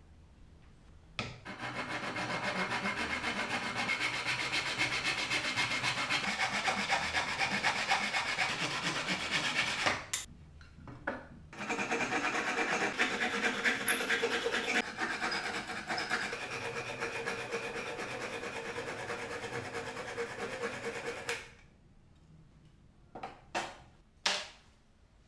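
Hand saw cutting through wood in quick, steady strokes, in two long stretches with a short pause about ten seconds in. It stops a few seconds before the end, followed by a few light knocks of wood on the bench.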